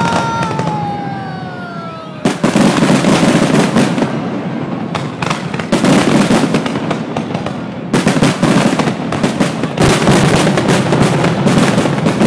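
Fireworks finale: a falling whistle fades out over the first two seconds, then about two seconds in a dense barrage of rapid bangs and crackles starts and keeps going.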